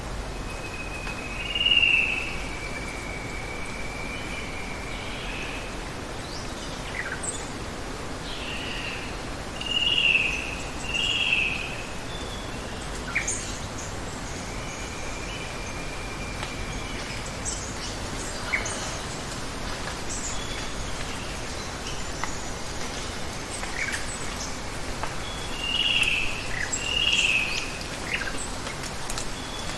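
Birds calling over a steady hiss of running water: loud doubled chirps about two seconds in, around ten seconds and near the end, with long thin whistles and short falling notes in between.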